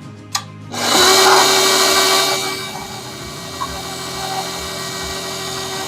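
Electric mixer running in pancake batter while flour is added a little at a time. It starts about a second in with one steady tone, is loudest for the first second and a half, then settles into a quieter steady hum.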